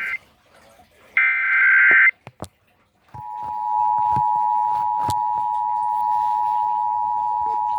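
Emergency Alert System tones on a radio broadcast: about a second in, a one-second burst of SAME digital data tones, then a couple of clicks, then from about three seconds in the steady two-tone EAS attention signal (853 and 960 Hz), which announces the spoken test message that follows.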